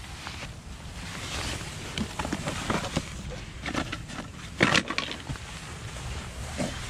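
Rustling and crinkling of tarp fabric and a plastic bag, with scattered light knocks, as someone pushes in under the flap of a tarp yurt and crawls inside. A brief louder noise comes about two-thirds of the way through.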